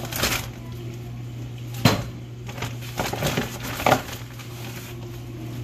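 Kitchen handling clatter as raw chicken is portioned into a slow cooker: a few sharp knocks and clunks, the loudest about two seconds in, over a steady low hum.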